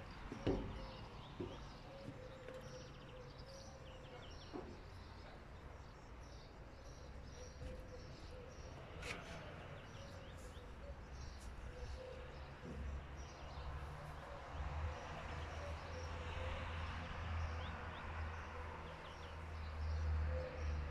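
Quiet outdoor ambience: faint bird chirps over a low steady rumble that grows louder in the second half, with a couple of soft knocks.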